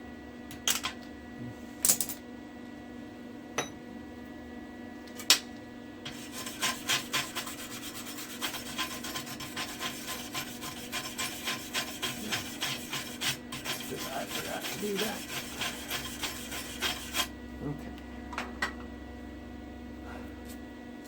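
Arc welding on a steel axle truss. A dense, rasping crackle starts about six seconds in and runs for about eleven seconds, after a few sharp metallic clicks.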